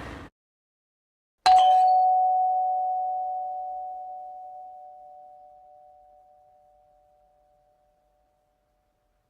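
A bell-like chime struck once, about a second and a half in, ringing on as one clear tone that fades away slowly over about six seconds. Just before it, a noisy effect cuts off at the very start.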